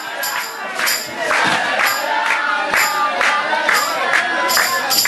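Crowd shouting and cheering over a tambourine jingling in a steady beat, about two strokes a second.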